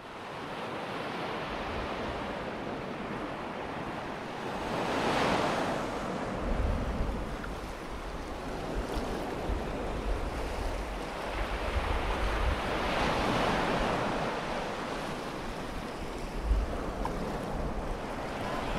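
Sea surf on a sandy beach: a steady wash of waves, with two waves swelling in and breaking, one about five seconds in and another around thirteen seconds. Wind buffets the microphone with low rumbles throughout.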